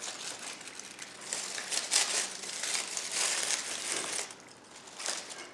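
Dry beech leaves crinkling and rustling as they are handled and pushed in among dried twigs and vines, in irregular bursts, loudest about two seconds in.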